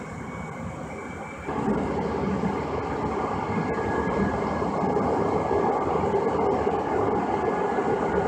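Running noise of a Siemens S200 light rail car heard from inside: a steady rumble of wheels on rail and running gear. It steps up sharply in loudness about a second and a half in and stays loud.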